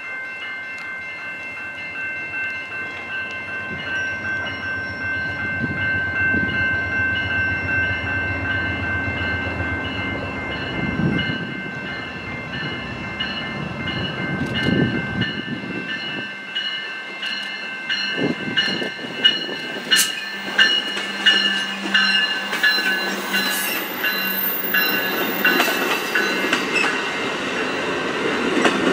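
Amtrak P42DC diesel locomotive sounding its air horn, a steady multi-note chord held through its approach and growing louder. As the passenger cars pass, the wheels clatter over rail joints in sharp, regular clicks.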